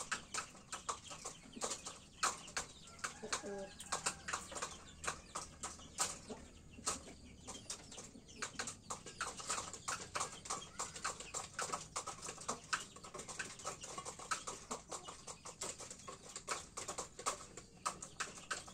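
Domestic chickens in a pen: a rapid, irregular ticking, like a chick pecking feed from a metal tray, with a short low cluck about three and a half seconds in.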